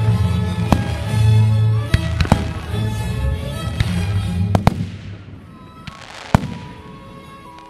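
Aerial fireworks going off in quick bangs and crackle over loud music, the bangs thinning out about five seconds in, with one more sharp bang a little later while the music goes on.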